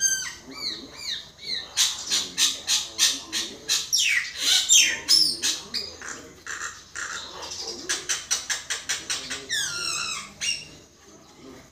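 Common myna singing: fast runs of harsh clicking chatter and squawks, mixed with sweeping whistles that fall in pitch. It stops shortly before the end.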